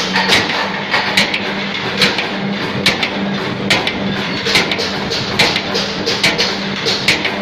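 CNC punching machine perforating sheet metal: a steady machine hum with sharp punch strikes about once or twice a second.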